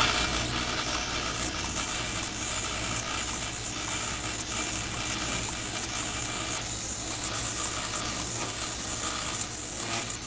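Rotary die-cutting press running steadily as .002-inch adhesive-backed copper foil feeds through its rollers: a constant low motor hum under an even hiss.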